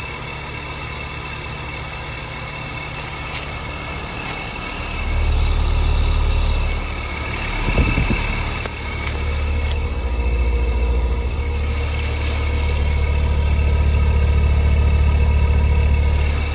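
2020 Carrier Comfort 14 heat pump outdoor unit running through a brief defrost cycle. Its heavy low compressor rumble swells about five seconds in, dips briefly around eight seconds, then builds again.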